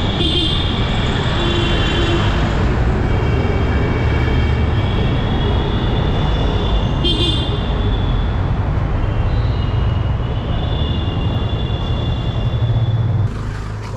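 Road traffic heard while riding: a steady low rumble of engines and road, with several vehicle horns honking on and off. The rumble eases a little near the end.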